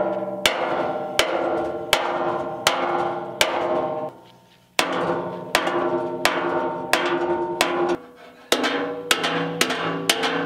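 Hammer blows ringing on the steel frame of a cement mixer as it is beaten straight. The blows are evenly spaced, each leaving a ringing tone. There are two short pauses, and after the second one the blows come quicker with a lower ring.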